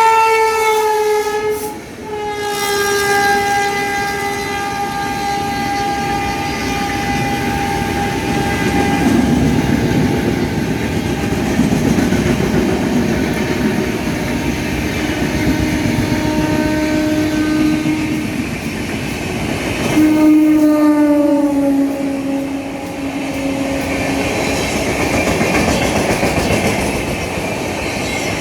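Indian Railways electric locomotive horns sounding in several long blasts over the steady rumble and clickety-clack of express trains passing on the tracks. Two of the blasts drop in pitch as a locomotive sweeps past.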